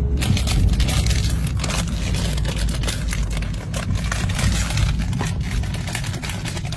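Crisp packet crinkling and rustling as it is handled, with many irregular crackles, over a steady low rumble of the car.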